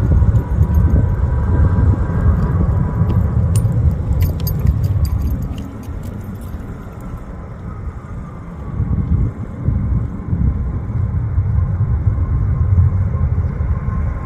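Boeing 777-300ER's GE90 jet engines at takeoff power: a heavy steady rumble with a thin whine from the fans. It dips for a few seconds midway and then builds again, and a cluster of sharp clicks comes about four seconds in.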